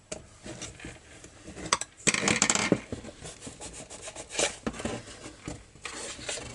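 Metal clinks, rattles and scraping as a hex key and the metal gear head of a string trimmer are handled and the head is slid off its shaft tube. There is a dense rattle of clinks about two seconds in, and a few single clicks after it.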